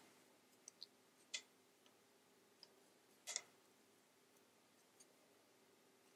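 Near silence broken by a few faint, irregular clicks of wooden knitting needles as stitches are worked, the clearest about three and a half seconds in.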